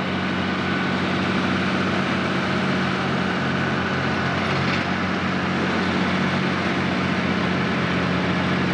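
Diesel engine of a Pro Stock pulling tractor running hard against the sled, holding one steady pitch throughout.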